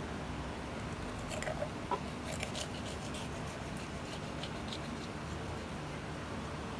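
A knife working through raw chicken at the joints on a cutting board: a few faint clicks and scrapes, mostly between about one and two and a half seconds in, over a steady low hum.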